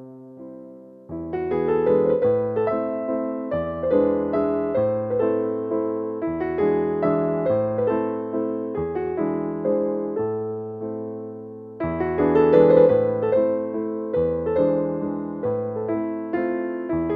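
Background piano music: a gentle keyboard melody over chords, notes struck and left to fade, with the left hand entering about a second in.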